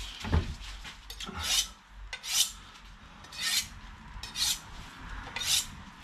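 Kitchen knife being honed on a sharpening rod: short, high scraping strokes of the blade along the rod, about one a second.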